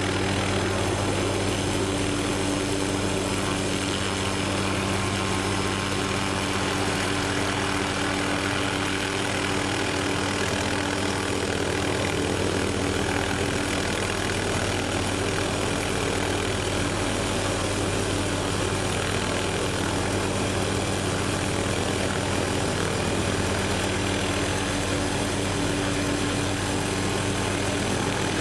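MD 500-series light helicopter hovering close by: steady rotor thump and turbine noise, unchanging in pitch and level.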